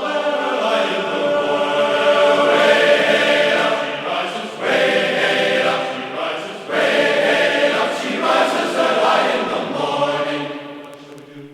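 Choral music: many voices singing long, sustained chords, fading out near the end.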